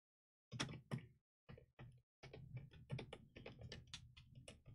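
Faint, quick clicks and ticks of a screwdriver working a screw into a laptop's plastic bottom cover, with small knocks of hands handling the tool and case.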